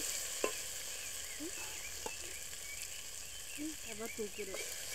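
A pot of potatoes and maize sizzling steadily over a wood fire as it is stirred with a wooden spoon, with a couple of sharp clicks from utensils.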